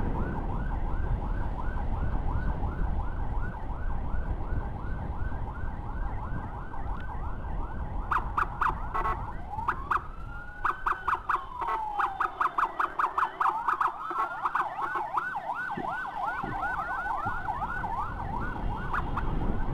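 Electronic emergency sirens of an ambulance escort: a fast yelp sweeping up and down about three times a second. About eight seconds in it breaks into a few sharp blasts and one slow rising-and-falling wail, then goes back to fast yelping mixed with rapid pulsing. A low motorcycle engine and wind rumble runs underneath.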